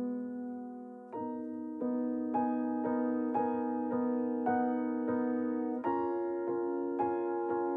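Soft background piano music: notes struck a little under twice a second over held chords, the chord changing about a second in and again near six seconds.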